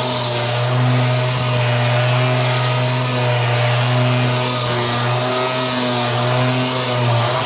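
Handheld orbital sander with a dust-extraction hose, running steadily as it sands body filler on a car body panel. It shuts off near the end, its pitch dropping.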